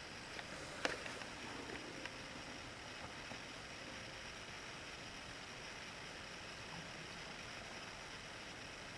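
Steady hiss of room tone, with a sharp click a little under a second in and a few faint ticks over the next two seconds.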